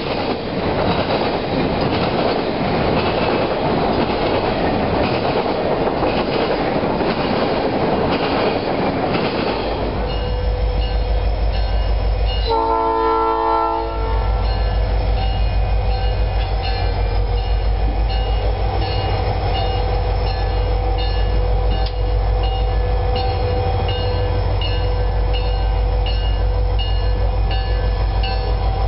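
Freight train rolling past with a steady rumbling clatter of wheels on rail; about ten seconds in it gives way to the low steady rumble of a diesel locomotive. About twelve seconds in, a locomotive air horn sounds one chord blast of about a second and a half.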